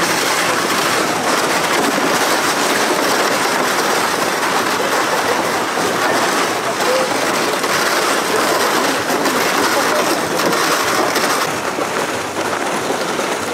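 Footsteps crunching on snow, a steady gritty noise of walking, with faint voices around.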